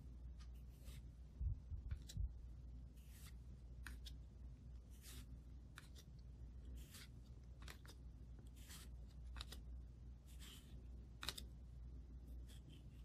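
Upper Deck hockey trading cards being flipped through by hand, each card slid off the front of the stack with a short, faint swish, roughly one a second at an uneven pace. A few soft low bumps come from handling the stack about a second and a half to two seconds in.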